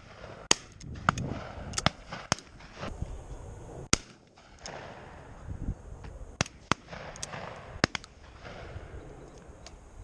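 Shotguns firing on a driven pheasant and partridge shoot: about ten sharp shots scattered irregularly, some louder and some fainter.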